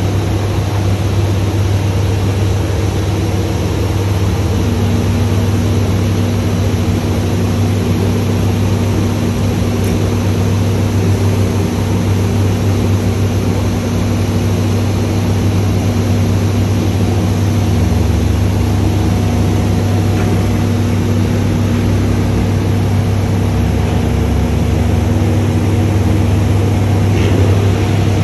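Diesel truck engine running steadily while the loader crane's hydraulics drive the boom out, a low drone with a steady higher whine joining about five seconds in.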